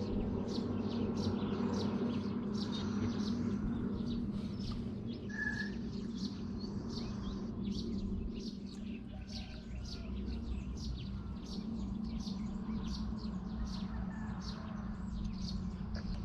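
Small birds chirping over and over, about three short high chirps a second, over a steady low hum.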